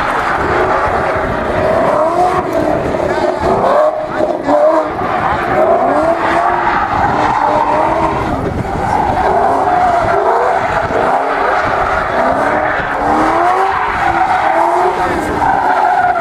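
A Ford Mustang drift car's engine revving hard, its pitch climbing again and again as the driver works the throttle through the slide, with tyres squealing and skidding on the asphalt.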